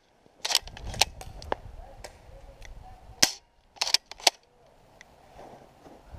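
Airsoft guns firing plastic BBs: a run of sharp pops, about three in the first second and a half, then another cluster of three or four between three and four and a half seconds in.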